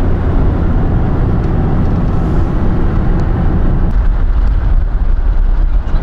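A car driving at road speed: steady engine, tyre and wind rumble, heard from inside the cabin. The low rumble grows heavier about four seconds in.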